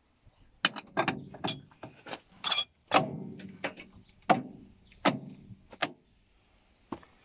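Steel planetary ring gear and hub of a Cat 434E backhoe loader's wheel end clanking against the splined axle shaft as they are slid on and worked by hand: about a dozen sharp metallic clanks and clicks over some five seconds, and one more near the end.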